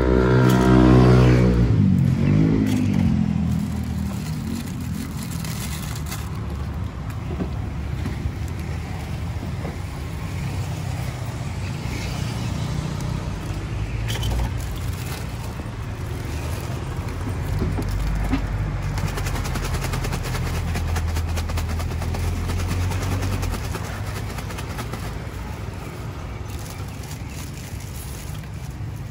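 Road traffic: a passing vehicle's engine falls in pitch over the first two seconds. Then a steady low engine rumble continues, growing louder for several seconds past the middle.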